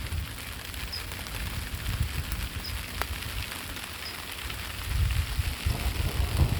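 Rain falling steadily during a thunderstorm, with scattered drop ticks and a low, uneven rumbling that swells about five seconds in.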